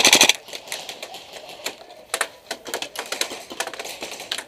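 A loud burst of rapid full-auto airsoft rifle fire that stops a fraction of a second in, followed by scattered, irregular sharp clicks and taps of airsoft shots around the field.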